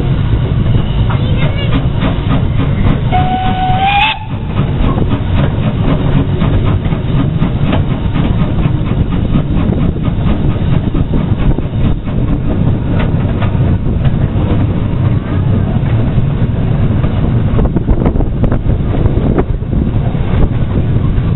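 Beattie 2-4-0 well tank steam locomotive hauling a freight train, heard from the van close behind it: a steady, loud low rumble of the train running, with wheels clattering on the rails. About three seconds in, a short whistle blast of about a second rises slightly in pitch and stops abruptly.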